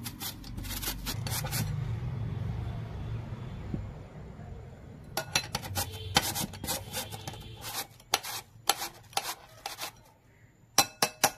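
Peeled potato grated on a flat stainless-steel grater: quick repeated rasping strokes. They stop for about three seconds after the first couple of seconds, resume in a dense run, and end with a few sharp scrapes near the end.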